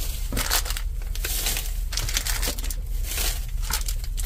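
A thin plastic bag and foil and plastic sweet wrappers crinkling and rustling in irregular handfuls as wrapped sweets are scooped up and dropped into the bag.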